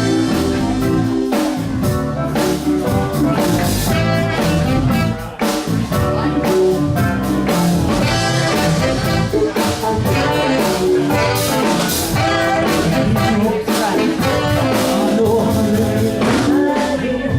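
A live blues-rock band playing an instrumental passage without lead vocals: drums and bass under keyboards, guitar and saxophones.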